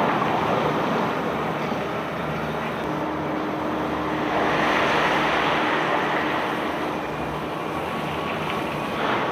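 Steady machinery noise of a self-unloading cargo barge at work, a continuous rushing din with a faint steady hum that holds through the middle and swells louder about halfway through.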